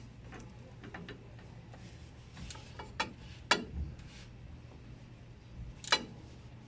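Ratchet socket wrench being worked on a bolt, giving a scatter of small ticks and a few sharp metallic clicks. The loudest comes about three and a half seconds in and another near the end.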